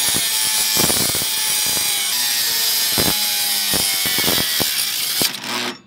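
Angle grinder with a cut-off wheel cutting through the trike's old metal axle: a loud, steady, high-pitched grinding that cuts off suddenly near the end. The axle is being cut out because it was stuck.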